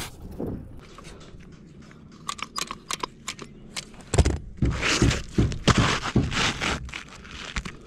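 Asphalt roof shingles being handled by gloved hands: scattered clicks and scrapes, then a louder run of crackly scraping and tearing from about four seconds in, as the shingle tabs are lifted and worked around a metal roof vent.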